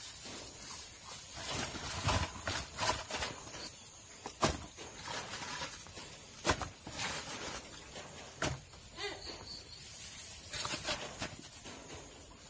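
Raw jackfruit bulbs and salt being handled in a plastic tub: scattered rustles with a few sharp knocks in between.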